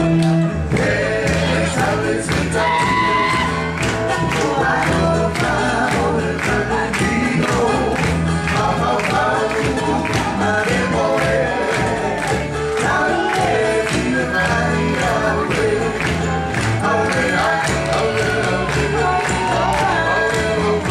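Group of voices singing to music with a steady beat and a repeating bass line.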